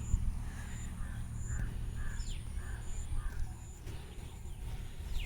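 A crow cawing faintly, a run of short caws over the first three seconds or so, over a steady low rumble.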